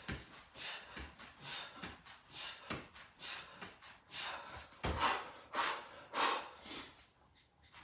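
A man breathing hard through sit-ups, in short forceful puffs about every half second, one with each rep. The puffs die away in the last second as he lies back.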